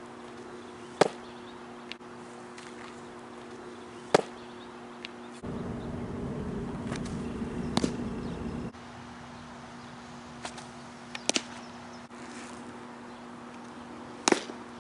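Pitched baseballs popping into a catcher's leather mitt: a sharp pop roughly every three seconds, five in all, over a faint steady hum. A few seconds of louder outdoor noise fill the middle.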